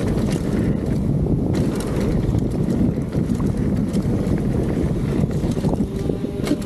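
Wind buffeting a handlebar-mounted action camera's microphone, mixed with mountain bike tyres rumbling over a dirt trail at speed. Occasional sharp clicks and rattles come from the bike on the rough ground.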